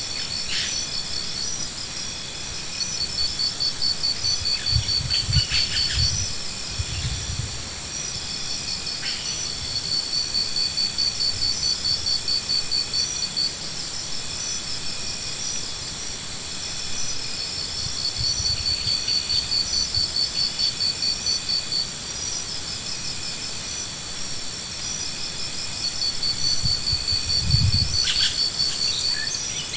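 A chorus of insects: steady high-pitched buzzing, with a shrill pulsed phrase a few seconds long that repeats about every eight seconds. A few brief low rumbles, the loudest near the end.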